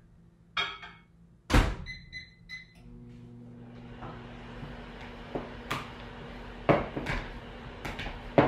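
Microwave door shut with a loud thunk about a second and a half in, followed by a few short keypad beeps, then the microwave running with a steady hum. Over the hum, a fork clinks and scrapes in a mixing bowl, mashing bananas.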